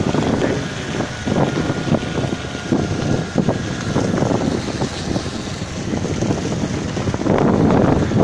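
Wind buffeting the microphone from a moving vehicle, over engine and road noise, growing louder near the end.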